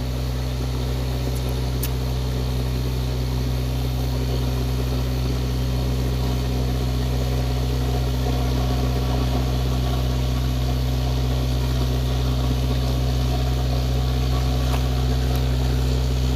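A steady low mechanical hum, like a motor running, that holds even throughout, with a couple of faint clicks.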